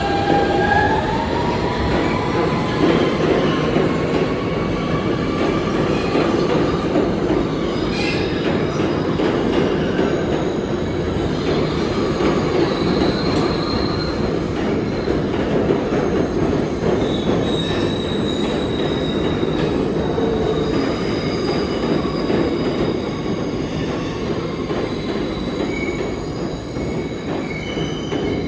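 New York City subway train running through the station: a steady rumble of wheels on rail, with high steel-wheel squeals coming and going, one rising in pitch in the first couple of seconds.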